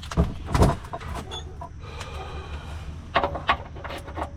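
Clattering knocks: two near the start and another pair a little after three seconds in, over a steady low hum.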